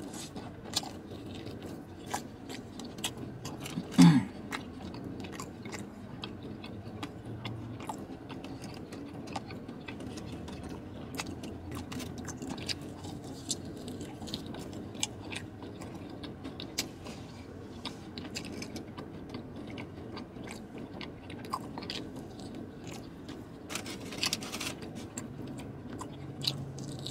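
A man biting and chewing sauced chicken wings close to the microphone: wet chewing with many small mouth clicks and smacks. One louder thump about four seconds in.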